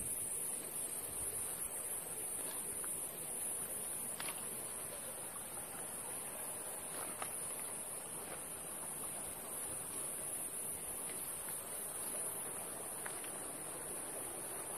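Steady high-pitched drone of insects in the vegetation, with a few faint short ticks scattered through it.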